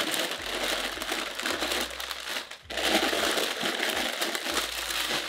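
Pink tissue wrapping paper in a cardboard shoe box rustling and crinkling as it is handled and folded back, with a short lull about two and a half seconds in.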